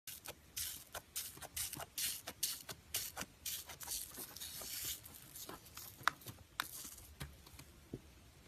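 Slime being squished and poked by hand, making an irregular run of sticky pops and clicks with short squelches, busiest in the first half and sparser towards the end.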